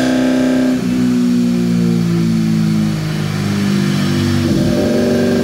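Toyota AE86 Corolla's 4A-GE 20-valve four-cylinder running on a chassis dyno, held at a steady speed. Its pitch drops about a second in and climbs again near the end.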